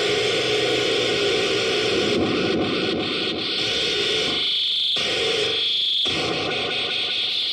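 Experimental sound machine putting out a dense, harsh wash of electronic noise with a steady high whine, cutting out briefly twice a little past halfway.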